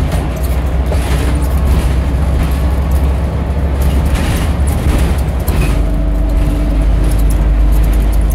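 Scania DC9 9.3-litre five-cylinder diesel of a Scania Omnidekka double-decker bus running under way, a steady low hum. About five and a half seconds in, the engine note shifts and a steady whine sets in, with light rattles throughout.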